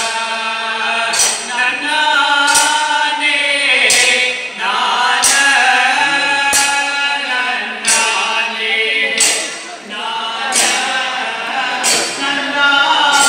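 A men's chorus sings a Kanniyarkali folk song through a PA, with a sharp percussion stroke marking a steady beat about every 1.3 seconds.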